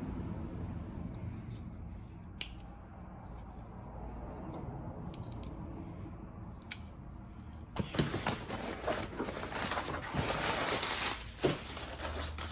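Items being unpacked from a shipping box by hand: a few light clicks and taps, then about 8 s in, several seconds of crinkly rustling of packing material.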